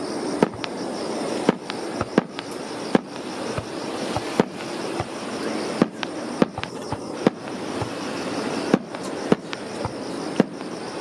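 Starmine fireworks barrage: aerial shells bursting in quick succession, with sharp bangs coming irregularly, roughly one every half second to a second, over steady background noise.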